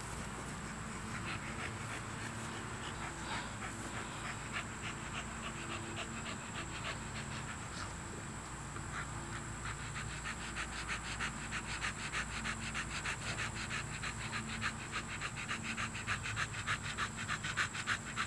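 American Bully puppy panting rapidly, the panting growing louder in the second half.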